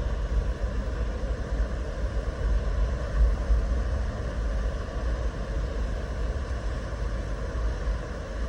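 Steady low rumble of water pouring over a waterfall, an even roar without breaks.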